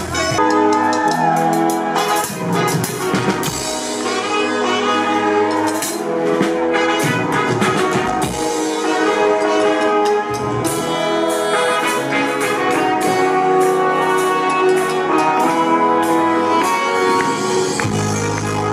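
Live brass and percussion band playing: trumpets and other brass hold and change notes over a marching bass drum and crashing cymbals.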